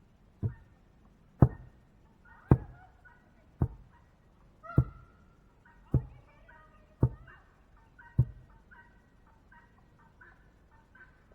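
Eight heavy strikes, evenly spaced about one a second, then stopping, as a tool pounds on something solid. Chickens cluck and call in short notes throughout, coming thicker near the end.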